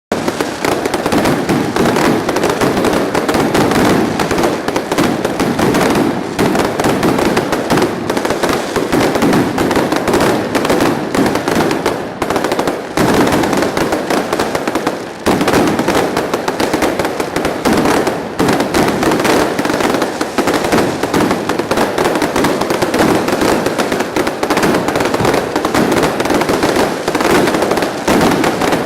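Fireworks going off in a dense, continuous rapid crackle of many small bangs, with two brief lulls near the middle.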